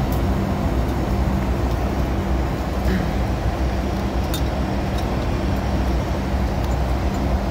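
Passenger jet cabin noise: a steady, loud drone with a low hum that holds throughout.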